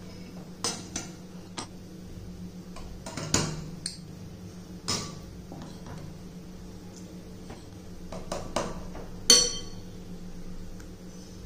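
A metal spoon scraping and clinking against a glass bowl and a stainless-steel puttu tube as damp flour is scooped and tipped into the tube: a string of light, irregular clinks and taps over a steady low hum, the loudest a sharper clink with a short metallic ring about nine seconds in.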